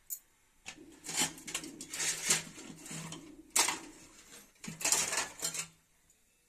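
Stainless steel spoon scraping and clinking against steel cookware: two spells of scraping with a sharp clink between them.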